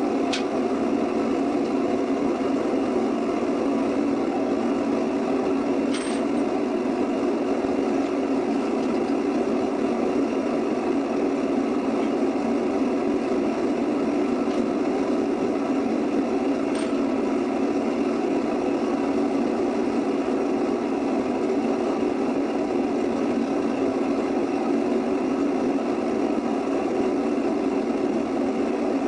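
Small foundry furnace firing at full heat, a constant steady rushing noise, while aluminum strips melt in its crucible. A couple of faint ticks, about 6 and 17 seconds in.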